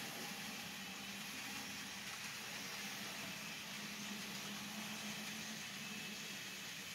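Model freight train cars rolling along the layout track: a steady rolling hum of small wheels on rail.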